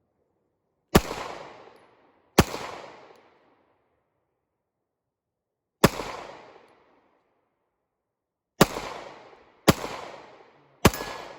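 Six gunshots at uneven intervals, each a sharp crack with about a second of echo dying away: two about a second apart early on, one near the middle, then three in quicker succession near the end.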